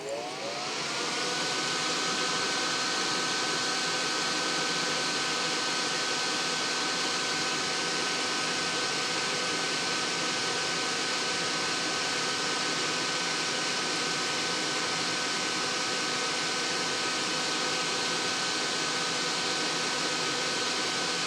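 Solder fume extractor fan switched on, spinning up with a whine that rises in pitch over about the first second, then running steadily with an even airy hiss and hum.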